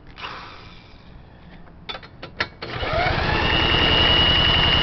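A few sharp clicks, then about two and a half seconds in a power drill spins up through a socket. It cranks the Craftsman mower's 6.5 HP Briggs & Stratton Quantum engine over for a drill start, with a whine that rises and then holds steady.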